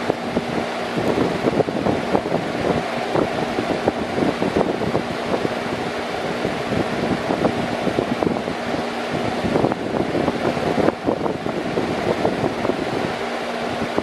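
Large metal-grille electric fan running steadily: a constant rush of moving air with a faint steady hum and an irregular fluttering of the airflow.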